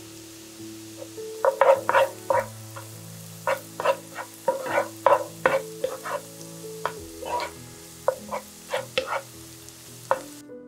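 Wooden spatula stirring and scraping chopped garlic and mushrooms frying in olive oil in a non-stick pan, about two to three quick scrapes a second, over a faint sizzle. The strokes start about a second and a half in.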